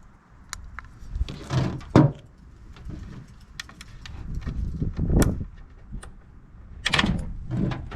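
Handling noises: scattered sharp clicks and a few short clunks and rustles, as equipment is moved and handled.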